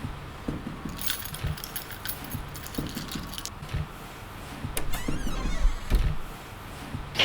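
Foley metallic jingling, like a bunch of keys shaken, for a couple of seconds, followed by a few low thumps about five to six seconds in.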